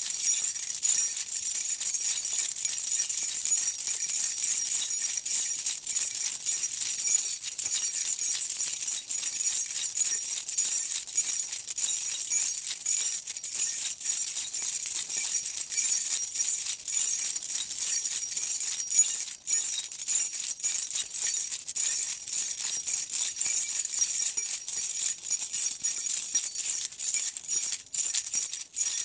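A bunch of metal keys being shaken and jangled without let-up: a dense, bright jingling with a couple of brief pauses.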